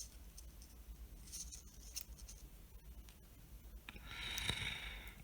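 Faint clicks and rubbing from handling and bending thin wire leads on a circuit board, with a louder scratchy rub lasting about a second near the end.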